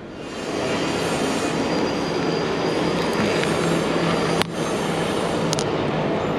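Large lorry driving past close by: a loud, steady rush of heavy engine and tyre noise, with a sharp click about four and a half seconds in.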